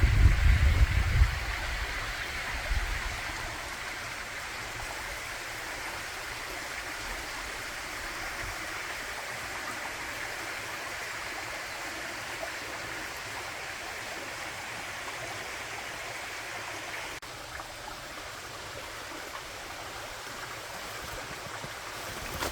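Forest stream running steadily, a continuous rush of water, with a low rumble in the first second or so.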